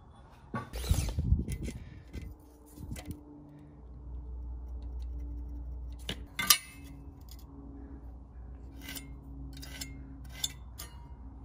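Light metallic clicks, clinks and scrapes as a tape measure, pencil and aluminium speed square are handled and set against a steel bar on a perforated steel welding table, with a sharp click about six and a half seconds in. A low steady hum runs underneath from a few seconds in.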